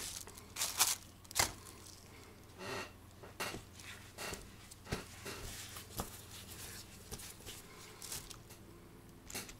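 Light handling noises from a brass clock movement plate: scattered small clicks as it is set down on a plastic tub, and brief rustling as oil is wiped off it with a cloth.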